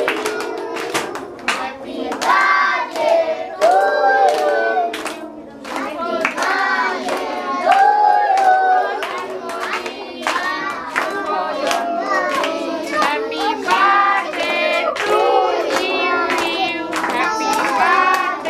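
A group of women and children singing a song together while clapping their hands along with it, the sharp claps repeating steadily under the voices.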